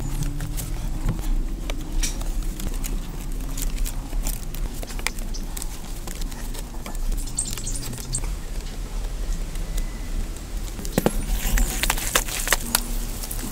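Thin bamboo strips clicking and rustling as they are bent, woven and lashed onto a bamboo-pole frame by hand. Near the end the clicks come thicker and louder, with a crackly rustle.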